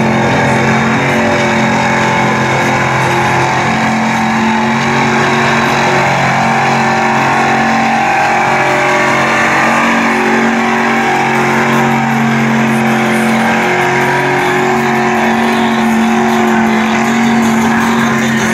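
Lifted Ford Super Duty pickup's engine held at high revs, a steady loud note with small dips, as its big tires churn through deep mud.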